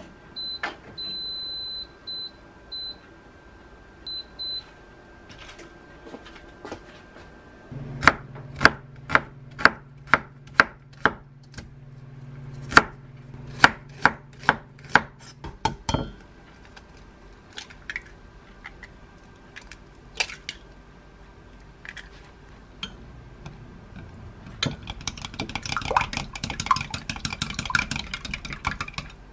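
An air fryer oven's control panel beeps several times as its buttons are pressed, one beep held longer. From about eight seconds in, a knife dices an onion on a wooden cutting board: sharp chops at about two a second for some eight seconds. Near the end an egg is beaten briskly in a glass mug, a fast clinking and scraping.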